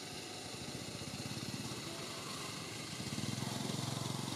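A small engine running with a fast, even beat, getting louder about three seconds in.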